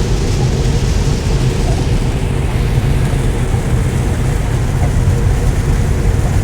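Steady road and rain noise from a Tesla Model 3 driving at highway speed in heavy rain: tyres hissing on the wet road and rain on the car over a low, even rumble.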